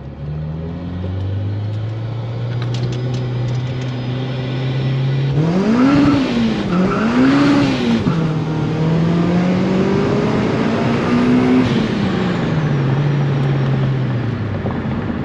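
Honda Civic Si's four-cylinder engine heard from inside the cabin, pulling hard through the gears. After a steady build, the revs shoot up and drop twice in quick succession about five seconds in, with a hiss of the tires spinning. It then pulls again for a few seconds, and the revs fall away near the end.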